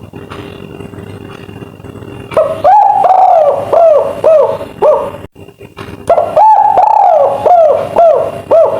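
Albino spotted dove cooing twice, in the call fanciers call 'kuk 3'. The first phrase starts about two seconds in and the second about six seconds in; each is a long arched coo followed by several shorter, falling coo notes. Under it runs a steady low background hum.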